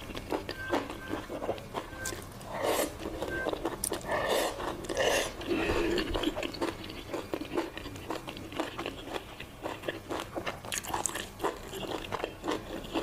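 Close-up eating sounds: chewing and biting a mouthful of rice with crispy fried pork, with wooden chopsticks clicking against a stainless steel bowl.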